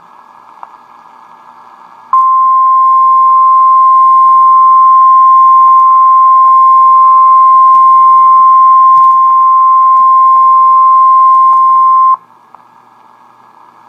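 Emergency alert attention tone: a single loud, steady beep, the NOAA Weather Radio warning alarm tone. It starts about two seconds in, holds for about ten seconds and cuts off sharply, announcing a severe thunderstorm warning. Low radio hiss before and after it.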